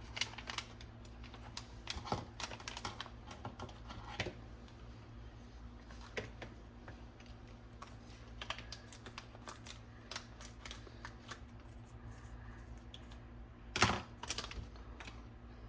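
Scattered light clicks and taps of small RC car drivetrain parts and tools being handled, as a pinion and spur gear are fitted, with a louder clatter of clicks about 14 seconds in. A faint steady low hum runs underneath.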